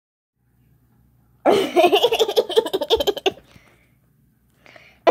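A person laughing, a quick run of ha-ha pulses lasting about two seconds, starting after a second and a half of near silence.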